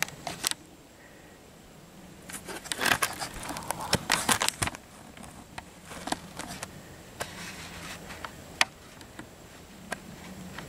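Scattered light clicks, with a burst of crackly rustling and handling noise about two to five seconds in.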